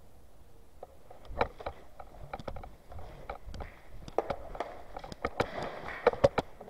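Footsteps crunching over gravel and debris, with irregular sharp clicks and knocks starting about a second in; the sharpest clicks come near the end.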